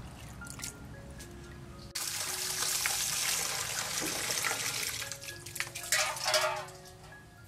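Water running from a tap into a steel bowl and splashing into a metal basin as the bowl is rinsed. The flow starts abruptly about two seconds in, with louder splashes near the end before it tails off, and there are a few small drips and clicks before it starts.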